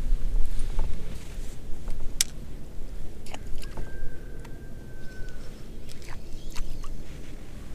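Low rumbling noise with scattered sharp clicks and light knocks from a baitcasting reel and flipping rod being worked on a boat deck. A steady whistle-like tone sounds for about a second and a half near the middle.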